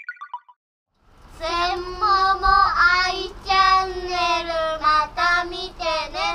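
A short falling run of chime-like notes, then children's voices singing with long held notes.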